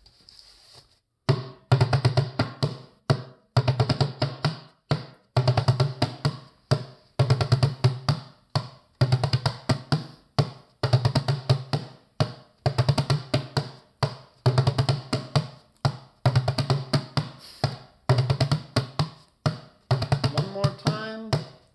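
Djembe played with bare hands: a difficult rhythm of quick strokes, played as a phrase that repeats about every two seconds.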